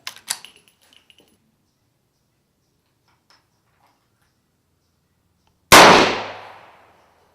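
A single gunshot about five and a half seconds in, very loud and sharp, with a tail that dies away over about a second. A few faint clicks come just before it at the start.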